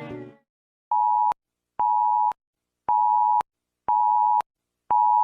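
An emergency alert alarm tone beeping in even pulses, a steady two-pitched tone of about half a second repeating roughly once a second, each beep ending with a slight click. The tail of a piece of music dies away just before the first beep.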